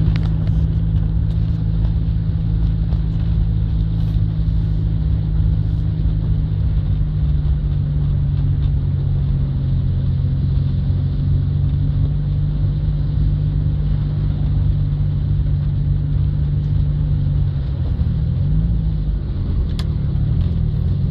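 Car engine running with a steady low drone, heard from inside the cabin; near the end its pitch wavers up and down as the engine speed changes.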